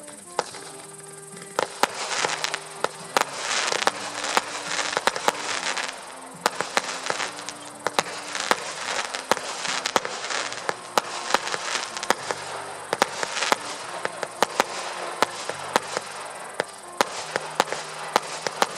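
Fireworks firing: a fast, uneven series of sharp pops and crackles with hissing, in louder waves from about a second and a half in, over background music with a slow melody.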